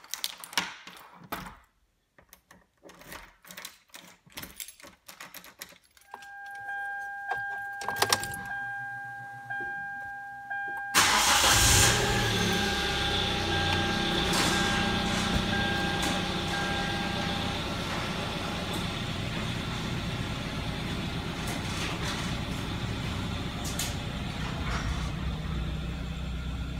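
Car engine starting about eleven seconds in with a sudden loud burst, then idling steadily. Before it there are scattered clicks and knocks, and from about six seconds a steady electronic tone sounds that stops a few seconds after the engine is running.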